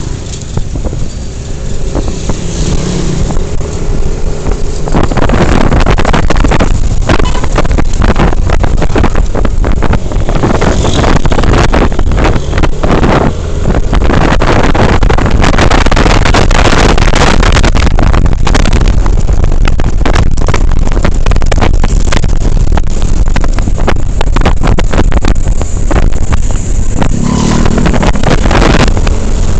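Loud wind buffeting the microphone of a moving vehicle, over a steady low engine rumble; it grows louder about five seconds in.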